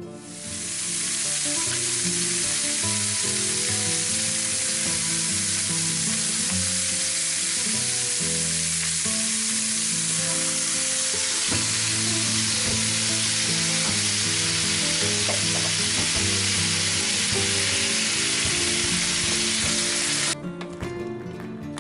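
Chicken pieces sizzling loudly as they sear in a hot stainless frying pan, stirred with a wooden spoon. The sizzle is a steady hiss that cuts off abruptly near the end.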